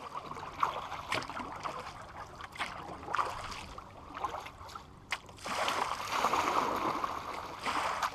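Kayak paddle strokes in calm water: the blades dipping in and pulling through, with splashing and dripping and a few sharp clicks. The water sound grows fuller and steadier about five and a half seconds in.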